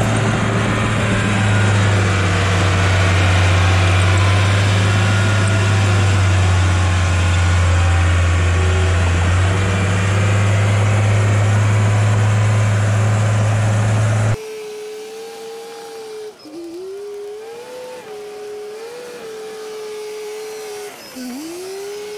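Bulldozer's diesel engine running close by, a loud steady low drone. About fourteen seconds in, the sound cuts off abruptly to a quieter thin whine that dips and recovers in pitch several times.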